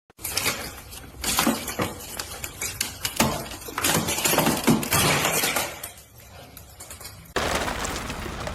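A string of irregular crashes and clinks of something shattering and breaking apart, over about six seconds. Near the end it cuts abruptly to a steady noise.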